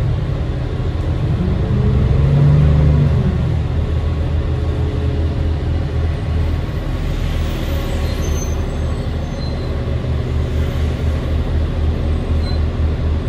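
A New Flyer D40LF city bus's Cummins ISL 8.9-litre six-cylinder diesel engine running under way, heard from on board. Its pitch rises and falls in the first three seconds, then it settles into a steady low drone.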